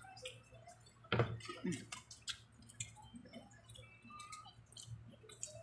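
Quiet eating by hand: small wet clicks and smacks of chewing fried fish and rice, and fingers picking at food on a plate, with one louder knock about a second in.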